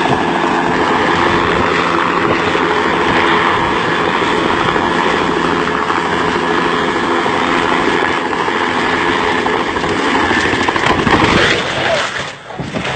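Helicopter hovering low overhead: a loud, steady rotor and turbine sound with heavy rush from the downwash. Near the end it breaks up and drops sharply for a moment.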